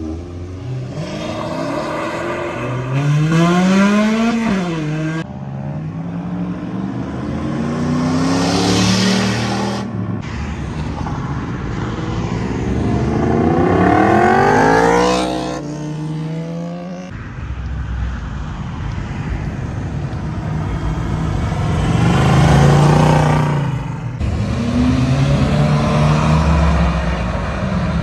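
Cars making hard street-racing pulls in several short clips: each engine revs up with a rising note that drops back at a gear change and climbs again, the loudest pull coming about two-thirds of the way through.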